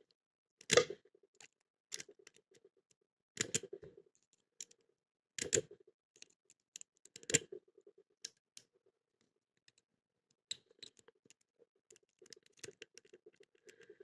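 A lock pick being zipped across the brass pin stack of a BAB zinc padlock: a sharp metallic click with a quick short rattle, repeated about five times in the first eight seconds, then fainter ticks and rattles as the picking goes on.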